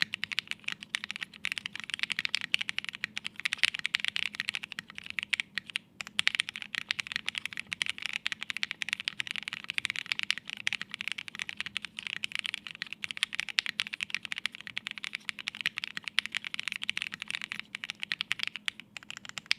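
Continuous fast typing on a plateless Nue mechanical keyboard with lubed Alpaca linear switches and Hammerworks CRP keycaps: a dense, unbroken run of key clacks with a brief pause about six seconds in.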